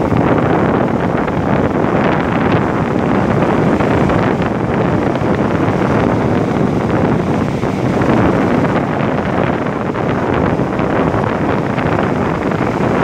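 Wind blowing hard across the microphone, a steady loud rush and rumble, with surf washing on the beach behind it.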